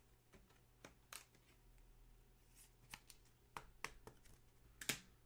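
Faint handling of trading cards: half a dozen soft, scattered clicks and rustles as cards are flipped and sorted.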